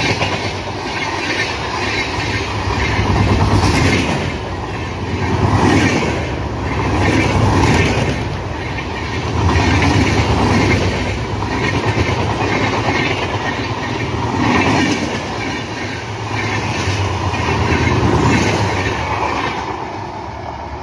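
Coaches of an express passenger train passing close by at speed: a steady rumble and clatter of wheels over the rails, rising and falling every couple of seconds.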